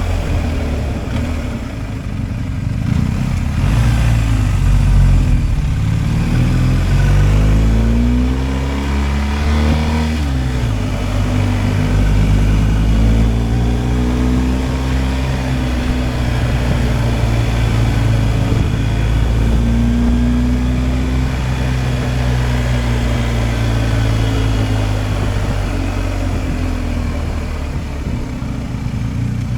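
BMW R 1250 GSA's boxer twin engine pulling under way: revs climb for several seconds, drop sharply with an upshift about ten seconds in, then hold at a fairly even cruise, rising and falling gently.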